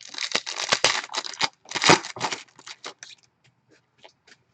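Trading-card pack wrapper being torn open and crinkled: a dense run of tearing and rustling for about two and a half seconds, then a few faint ticks.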